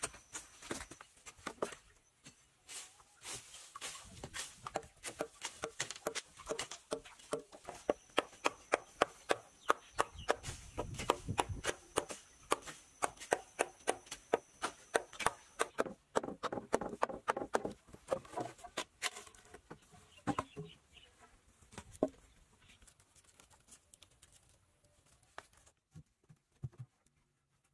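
Quick series of sharp knocks and chops from hand tools striking wood and earth, about two or three a second, thinning out toward the end.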